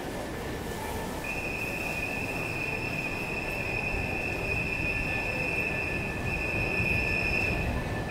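A steady high-pitched whine starts about a second in and holds, over a low background rumble.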